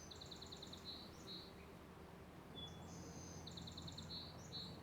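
A sparrow singing the same song twice: a short thin whistle, a higher buzzy note, then a fast trill of repeated notes and a few closing notes.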